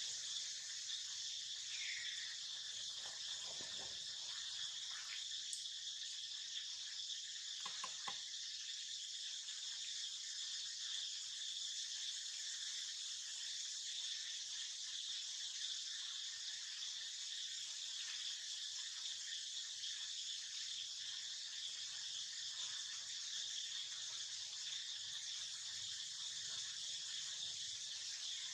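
Steady, dense high-pitched insect chorus, a continuous buzzing trill, with a brief falling chirp about two seconds in and a few faint clicks about eight seconds in.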